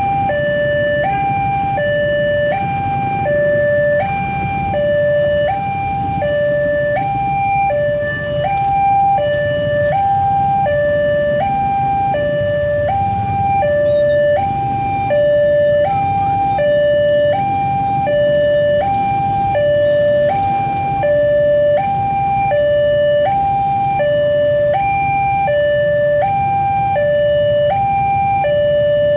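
Railway level-crossing warning alarm sounding steadily, alternating between a higher and a lower electronic tone to warn that a train is approaching.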